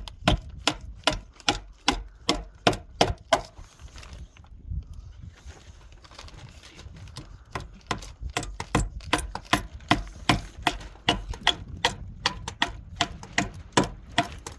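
Repeated hammer blows, about three a second, in two runs separated by a pause of about four seconds, the second run faster.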